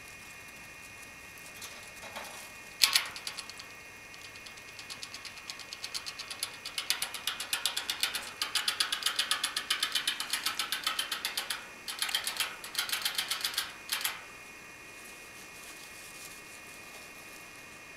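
A sharp knock about three seconds in, then a fast run of rhythmic clicking from inside a small pet rodent cage, about six clicks a second, building up over a few seconds and going on in spells with short breaks before it stops.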